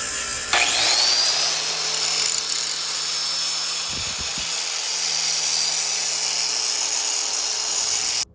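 Power grinder grinding a bevel on steel: a steady, loud grinding hiss with a high whine. About half a second in the whine rises and the grinding grows louder, and the sound cuts off suddenly at the end.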